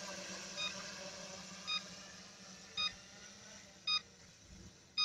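Short electronic beeps, each several tones sounding together, repeating about once a second, five in all. Under them a faint steady hum dies away near the end.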